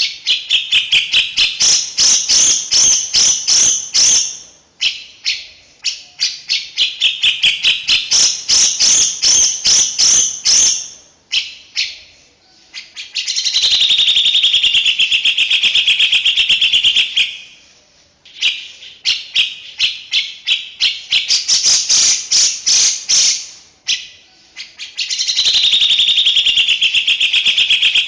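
A songbird singing a dense, harsh master song: rapid chattering phrases of four to five seconds, each followed by a short pause, five bouts in all. This is a 'masteran' tutor song, played for cage songbirds to copy.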